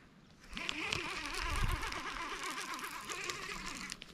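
Baitcasting reel whirring for about three and a half seconds, starting and stopping abruptly.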